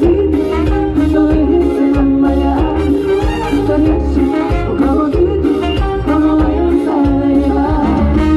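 Live band playing upbeat salsa-style Latin music, with strong bass, horn-like sustained notes and percussion, and some singing.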